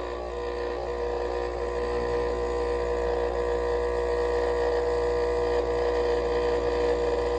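Dental laboratory vibrator buzzing steadily while wet die stone is vibrated into an impression so it flows without trapping air bubbles.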